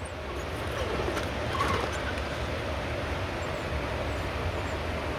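Electric motor and gear drive of an RC rock crawler whirring steadily as it works up a rock line.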